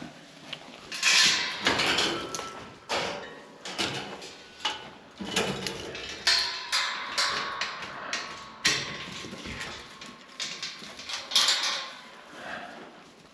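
A run of irregular knocks and clatters, some with a short ring, as hard objects such as barn gear are handled and bumped.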